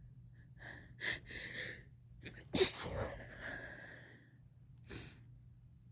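A woman sneezing: a few quick catching breaths, then one sharp sneeze about two and a half seconds in that trails off, and a short breath out near the end.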